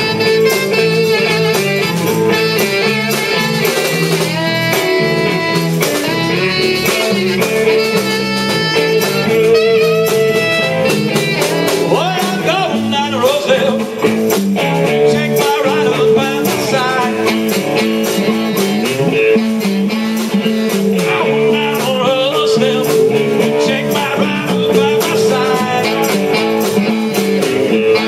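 Live blues-rock band playing: electric guitar, saxophone, electric bass and drums, an instrumental passage that runs on without a break.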